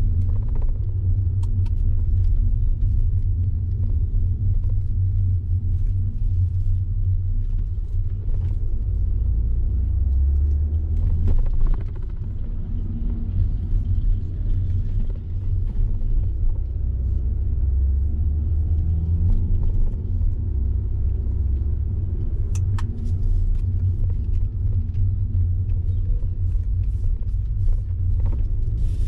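Car driving along at a steady pace: a continuous low road and engine rumble, with a few brief ticks and rattles.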